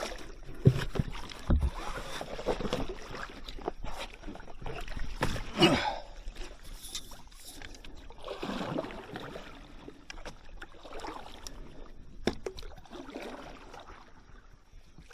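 Shallow creek water splashing and sloshing around an inflatable paddle board in irregular swishes, with a few sharp knocks, growing fainter near the end.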